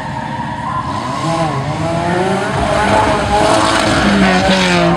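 Offroad 4x4 competition vehicle's engine revving, its pitch rising and falling repeatedly, getting louder about halfway through.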